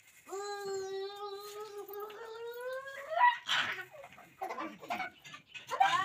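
A small child's long, steady wail of about three seconds that rises in pitch at its end, followed by short breathy sounds and a second, shorter cry near the end.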